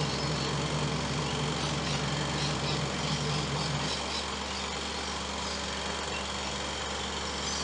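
Mother cat purring while nursing her newborn kittens: a low, steady rumble that weakens about four seconds in.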